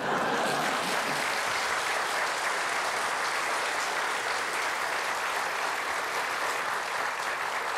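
Theatre audience applauding: many hands clapping at once, breaking out suddenly and holding steady.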